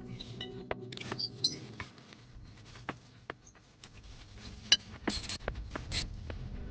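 Scattered clicks and knocks with short metallic clinks, the loudest a sharp ringing clink about five seconds in: tools and brake parts being handled during a brake pad change.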